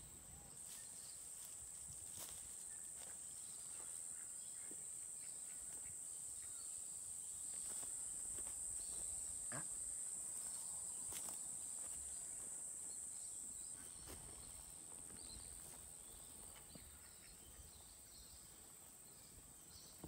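A steady, high-pitched insect chorus that swells a little in the middle and eases off later, with faint bird chirps and a few soft clicks.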